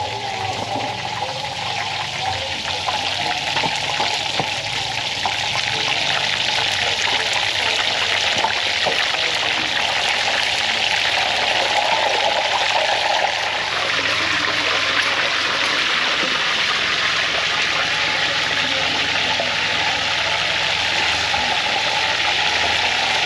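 Water running steadily from a kitchen tap into a sink, growing a little louder over the first few seconds.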